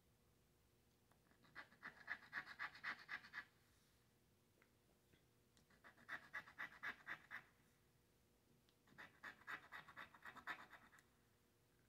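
A scratch-off lottery ticket's coating being scraped away in three short bursts of quick back-and-forth strokes, each burst uncovering one number, with quiet pauses between them.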